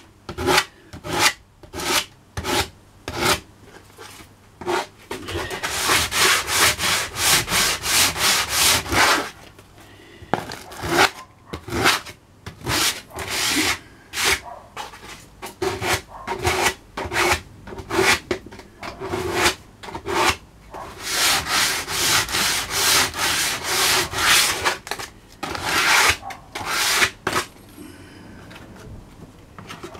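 Coarse 60-grit sandpaper rubbed by hand back and forth over rough pallet wood, in repeated strokes about two to four a second, with spells of faster rubbing and short pauses between. The strokes stop near the end.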